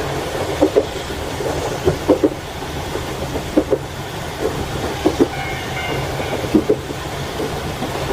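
Railway carriage wheels clicking over rail joints in pairs, about every second, over a steady low running rumble of a moving train.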